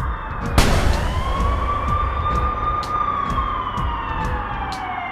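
Police car siren wailing: one slow wail that climbs about half a second in, holds, then slowly falls. It runs over a steady low engine rumble, with a short loud burst of noise about half a second in.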